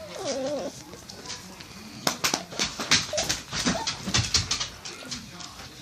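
Pet dog whining briefly with a wavering pitch, followed by a quick run of sharp clicks and taps near the middle.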